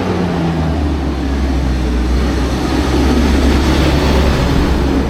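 Shuttle minibus engine and road noise heard from inside the moving bus: a loud, steady low rumble with a hiss above it that swells a little in the middle.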